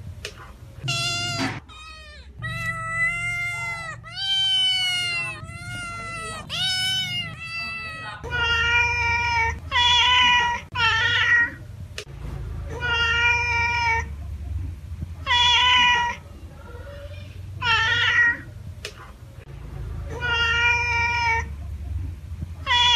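Domestic cat meowing over and over: one call, then a quick run of shorter, wavering meows, then loud meows repeated about every two seconds.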